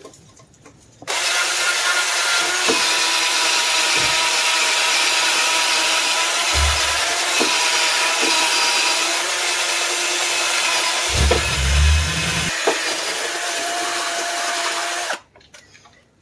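Cordless power tool with a wire wheel brush scrubbing the steel frame rail, stripping rust and coating to bare metal for welding. It runs with a steady motor whine under the rasping of the wire bristles, with a few low knocks, starting about a second in and cutting off about a second before the end.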